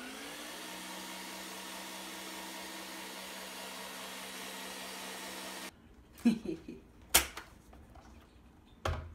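Countertop blender motor running steadily as it mixes a thick ground-meat and vegetable paste, then switching off abruptly about six seconds in. A few sharp clicks and knocks follow as the pitcher's lid is handled.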